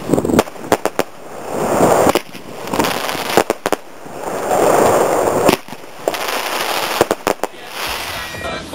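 A 30mm fan barrage firework (Royal Party RP60) firing: sharp launch shots, some in quick runs of several, with stretches of dense crackling from the bursts in between.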